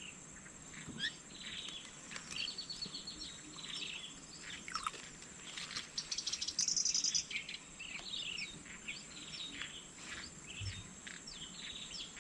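Birds chirping in many short, quick notes over a steady high insect drone, with a fast rattling trill a little past halfway.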